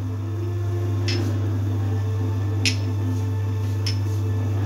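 Spinach gravy cooking in a wok, with three short, sharp pops roughly every second and a half over a steady low hum.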